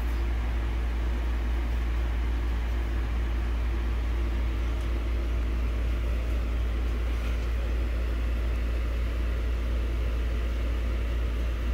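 A steady low hum with an even hiss underneath, constant throughout with no distinct events.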